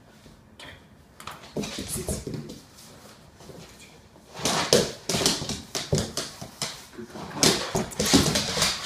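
An excited dog making noise in short, irregular bursts, much louder from about halfway through.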